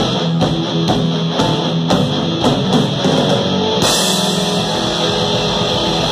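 Live rock band playing loud: electric guitars and bass over a drum kit hitting about twice a second. About four seconds in, the beat gives way to a continuous crash of cymbals over held guitar chords.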